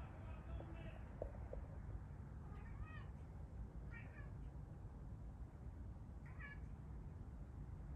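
A cat meowing four times, short faint calls a second or two apart, over a steady low rumble.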